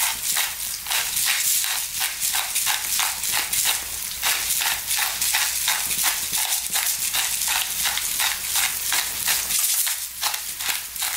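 Hand pepper mill grinding black peppercorns, at about four crunches a second, over the steady sizzle of chopped onions and garlic frying in olive oil.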